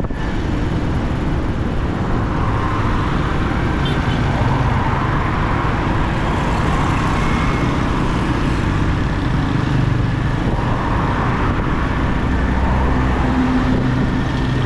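Motorcycle engine running steadily while riding along a road, mixed with the noise of surrounding road traffic.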